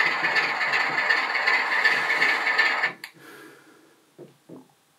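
Bachmann Class 25 model's DCC sound decoder playing a rattly diesel engine sound through the model's small speaker. It cuts off suddenly about three seconds in, followed by a few faint clicks.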